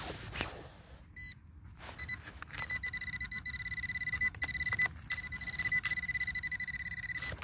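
Handheld metal-detector pinpointer beeping over a buried metal target in the soil. It gives two short blips, then from about two and a half seconds in holds a steady high beep, a sign that the probe's tip sits right on the metal. A few faint scrapes and clicks of soil and stones are heard alongside.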